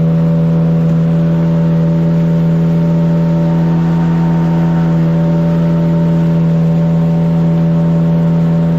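Boat's outboard motor running steadily at constant speed, a level engine drone that neither rises nor falls.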